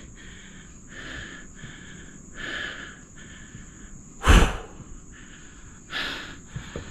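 A man breathing heavily close to the microphone, soft breaths about once a second, with one loud sharp puff of breath about four seconds in. A faint steady high whine runs underneath.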